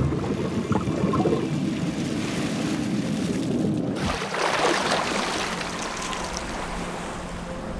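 Muffled underwater bubbling and rumble of a scuba diver's exhaled breath. About four seconds in, the sound turns abruptly to splashing, lapping sea water at the surface.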